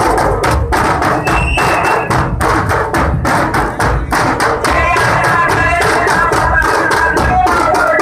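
Group drumming: many large barrel drums (dhols) beaten hard with sticks together in a fast, steady rhythm of sharp, dense strokes.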